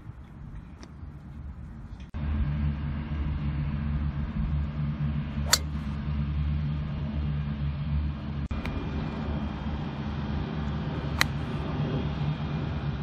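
Two sharp cracks of a golf driver striking a ball off the tee, about five and a half seconds apart, over a steady low mechanical rumble.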